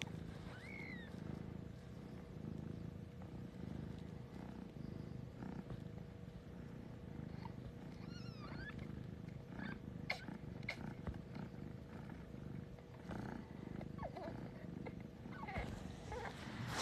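Mother Siberian cat purring steadily with her newborn kittens, with a few faint high squeaky mews from the newborns, most about eight seconds in, and a soft click about ten seconds in.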